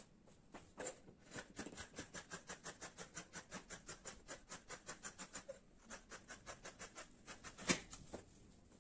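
Dressmaking scissors snipping through two-thread cotton knit sweatshirt fabric in quick, even strokes, about six snips a second, with a short pause partway. One louder knock near the end.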